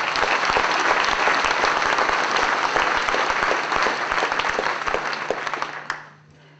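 Audience applauding, a dense run of clapping that dies away about six seconds in.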